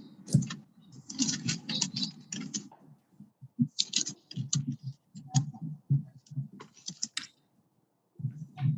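Scattered irregular clicks and taps mixed with brief, faint, muffled voice fragments, heard over an online video-class call.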